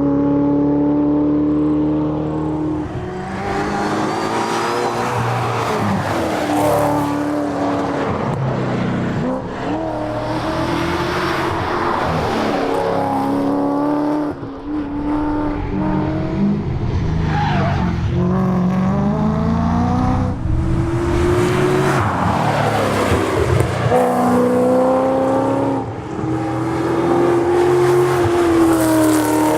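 Ford Mustang rally car's engine driven hard, its pitch repeatedly climbing under acceleration and dropping back at gear changes and lifts, with barely a pause throughout.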